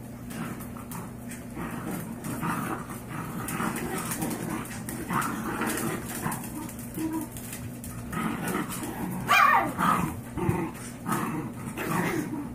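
Five-week-old Yorkshire terrier puppies and their mother tussling and vocalising: a run of small yips and whimpers, with a loud yelp falling in pitch about nine seconds in.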